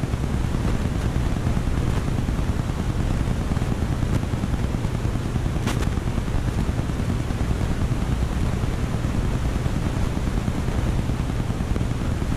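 Aquarium filter and pump running: a steady low hum under an even hiss, with one faint click about six seconds in.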